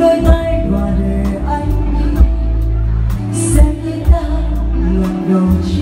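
Live band music: electric guitar, keyboard, bass and drums playing a slow song, with a woman singing into a microphone over the PA, in a large hall.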